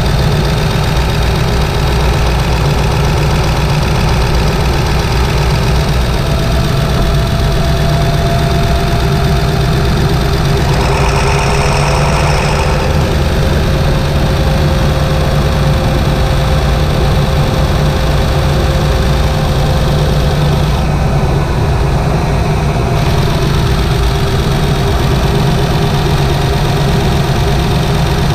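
Ford 7.3 L Powerstroke turbocharged V8 diesel running steadily under light load while driving, heard close up from the engine bay, with a faint whistle that drifts slowly in pitch. A brief hiss rises over it around the middle.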